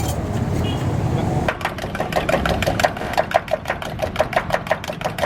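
Rapid, even metal clinking, about six strikes a second with a short ring, starting about a second and a half in: a spoon beating eggs in a steel tumbler for an omelette. A low traffic rumble runs underneath.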